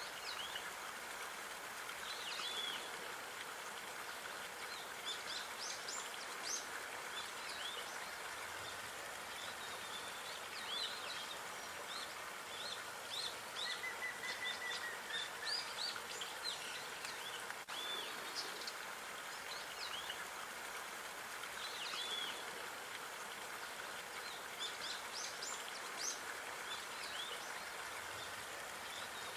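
Small birds chirping and calling repeatedly, with short high notes scattered throughout and one brief steady whistle in the middle, over a steady outdoor background hiss.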